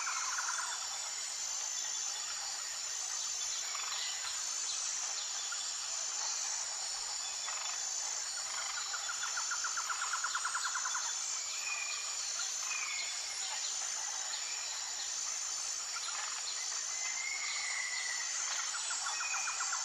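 Forest ambience: a steady high-pitched insect trill throughout, with birds calling over it. One bird gives a rapid trill about halfway through and again near the end, and others give short whistled notes.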